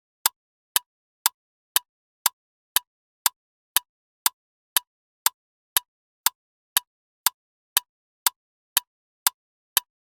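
Loud ticking clock: sharp, even ticks, two a second.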